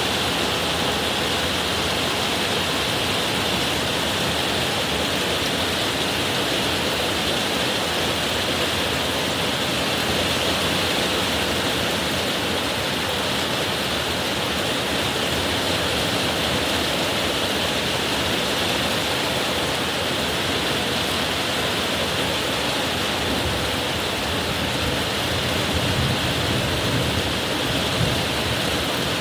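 Heavy rain pouring down in a summer cloudburst, a steady dense hiss that does not let up.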